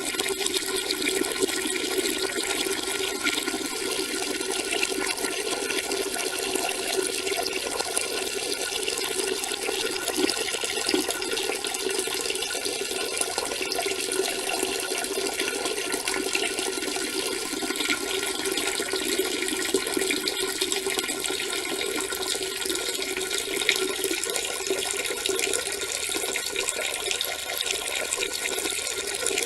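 A steady, unbroken stream of urine splashing into water.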